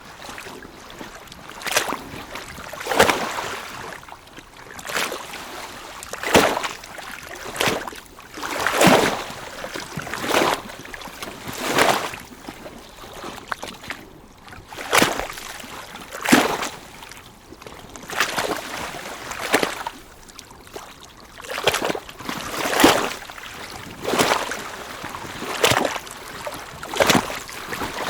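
Small lake waves lapping against the shore, gentle splashes coming about every one to two seconds over a steady wash of water.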